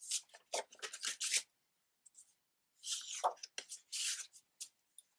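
Sheets of scrapbook paper and light cardstock being handled and arranged: short bursts of paper rustling and sliding, in a cluster at the start and another about three seconds in.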